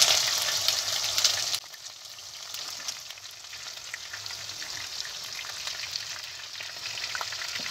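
Chopped onions hitting hot oil in a kadai and sizzling loudly. About a second and a half in, the sizzle suddenly drops to a quieter, steady frying crackle with small pops.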